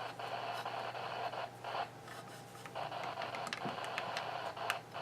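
Faint steady hiss over a low hum, with scattered small clicks; no warning beep comes through.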